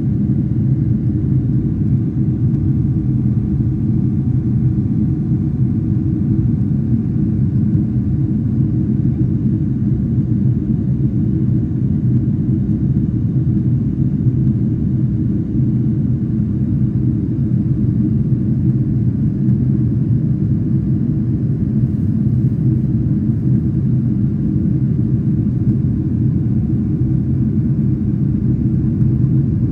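Jet airliner cabin noise in flight, heard from a window seat: a steady, loud low rumble with a faint steady hum above it.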